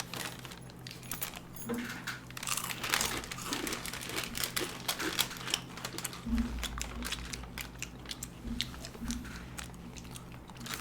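Crinkling and rustling of a plastic chip packet of Bingo Tedhe Medhe, with irregular crackly crunches as the chips are handled and eaten.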